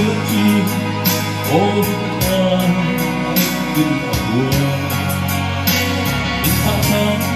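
A man singing a Christian gospel song into a microphone, amplified, over an instrumental accompaniment with a steady beat.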